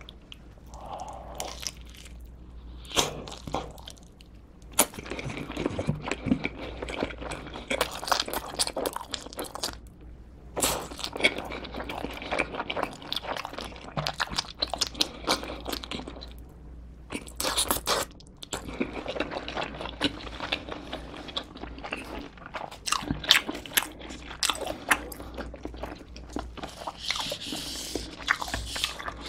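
Close-miked eating of pepperoni cheese pizza: repeated bites with crunching and chewing, broken by a few short pauses.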